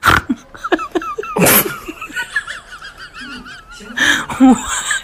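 A large husky-type dog howling and whining in wavering tones, broken by three loud, sudden noisy bursts.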